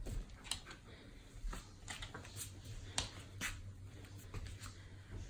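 A few light, scattered clicks and taps from dogs shifting and lifting their paws on a wooden floor, over a faint low hum.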